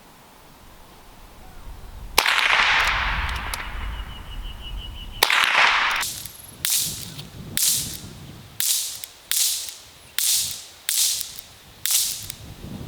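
A .22 rimfire lever-action rifle, a Winchester Model 9422, firing about ten shots. One shot comes about two seconds in and rings on for a while, another follows about three seconds later, then a quicker string of shots comes at roughly one a second.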